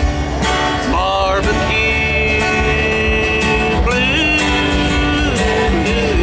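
Country-blues song, an instrumental break: guitar-led band, with a lead line of held notes that bend and slide over a steady bass and beat.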